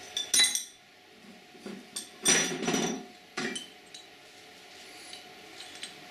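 Metal engine parts clinking and knocking as they are handled and set down on a workbench during an engine teardown. A few separate knocks, the loudest a ringing clatter lasting about half a second a little over two seconds in.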